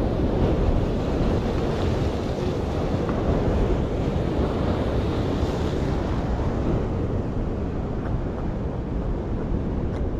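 Ocean surf breaking against a concrete tetrapod breakwater in a steady wash of noise, with wind buffeting the microphone.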